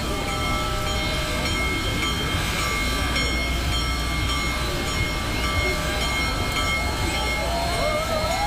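Union Pacific Big Boy 4014 steam locomotive moving ahead at a crawl: a steady low rumble with several steady high-pitched tones held over it.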